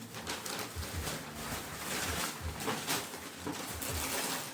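Wrapping paper rustling and crackling in irregular bursts as a present is unwrapped, with a few soft low thuds of the box being handled.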